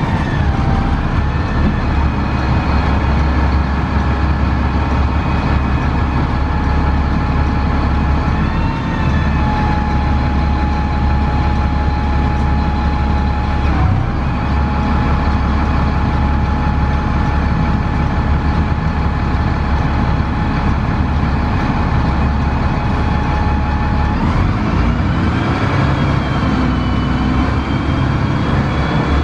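Onboard sound of a 2002 Gillig Advantage transit bus with a Cummins ISC diesel and Voith 864.3E transmission: a steady low engine rumble with a whine holding one pitch for most of the time. Near the end the pitch rises as the bus accelerates.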